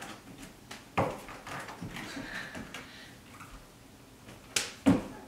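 Slaps and thuds from handstand thigh taps: hands slapping the thighs and landing back on a hardwood floor. There is one sharp slap about a second in, then a quick pair near the end, the second a heavier thump.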